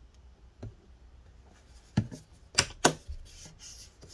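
Small hard items being handled on a work surface: a few faint clicks, then three sharp clicks and knocks about two seconds in. Near the end, light repeated scraping strokes begin as the flat tool works at leftover battery adhesive.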